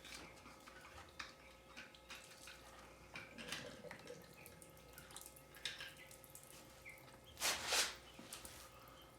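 Antifreeze dripping and trickling from a disconnected coolant hose, with scattered small clicks; a short, louder rush of noise about seven and a half seconds in.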